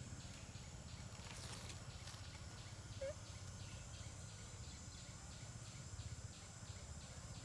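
Faint forest ambience: a steady high insect drone with a fast, even pulsing over a low rumble. One short rising squeak comes about three seconds in.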